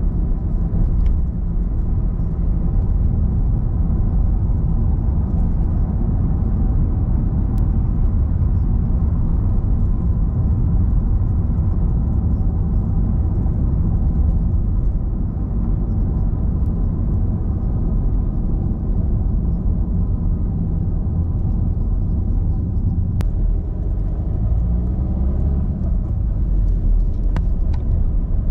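Car driving on city streets: a steady low rumble of engine and tyre noise, with a brief rise and fall in engine pitch near the end and a few faint ticks.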